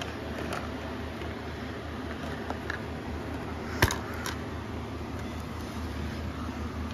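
A plastic DVD case is handled and clicked open, with one sharp snap about four seconds in and a few lighter clicks around it. A steady hum runs underneath.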